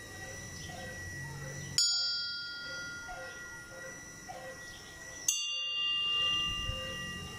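Church bell tolling a death knell: two strikes about three and a half seconds apart, each left ringing on.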